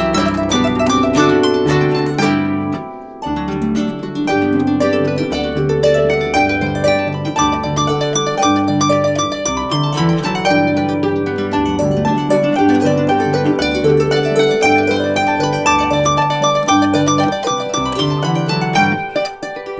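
Two harps playing a lively instrumental duet: quick runs of plucked notes over steady bass notes, with a brief drop in loudness about two and a half seconds in.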